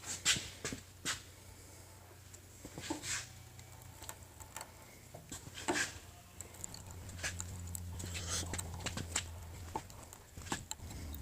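Hand die being turned in its die stock to cut threads on a metal rod: scattered clicks and knocks as the die is worked on and backed off.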